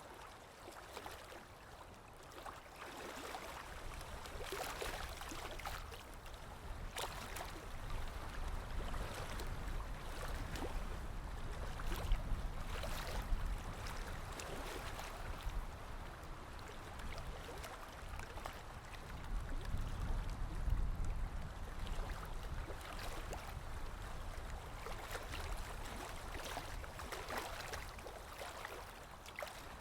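Sea waves washing in, a continuous rush of water over a low rumble that swells and eases, loudest about twelve and again about twenty seconds in, with scattered small splashes.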